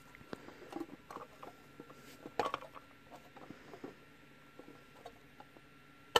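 Small clicks, taps and light scrapes of fingers handling a clear plastic baseball display cube, working at its lid. A louder cluster of clicks comes about two and a half seconds in, and a sharp click at the very end.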